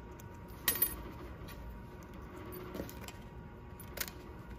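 A few light metallic clicks as a copper-alloy collet and brass gas lens for a TIG torch are handled and fitted together by hand; the sharpest pair comes a little under a second in, with fainter ones later.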